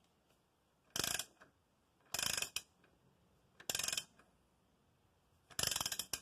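Hand ratchet wrench being worked: four short bursts of ratcheting, a second or more apart, the last one the longest.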